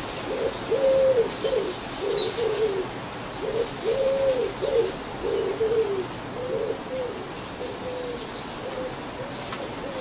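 A pigeon cooing over and over in short low notes, about two a second. Brief high chirps of small birds come near the start.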